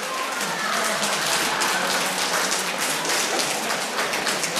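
Audience applauding: a dense, steady patter of many hands clapping, with some voices in the crowd.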